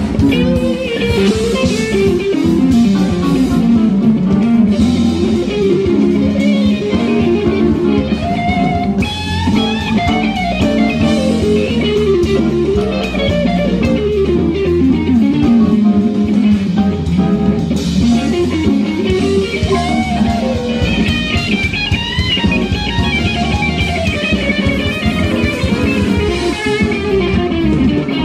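Live band playing: an electric guitar lead line with gliding, bent notes over bass guitar and drums.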